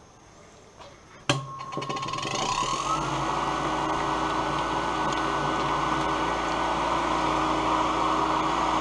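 Professional cotton candy machine switched on with a click about a second in. Its spinner head motor whirs up in pitch over a second or two, then runs steadily, spinning sugar into floss.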